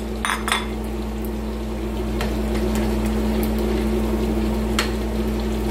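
Pork frying in a pan of bubbling oil over a steady low hum, with a few light clicks of a utensil against a steel pot as the broth is stirred.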